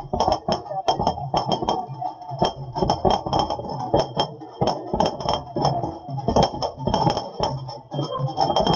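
Firecrackers going off in quick, irregular succession, several sharp bangs a second, over the chatter of a crowd.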